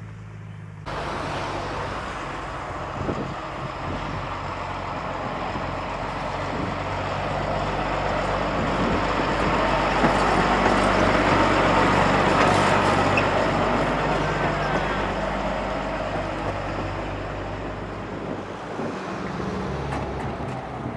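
Narrow-gauge diesel shunting locomotive running, its engine giving a steady low hum under a rushing noise that starts suddenly about a second in, swells to its loudest around halfway, then eases off.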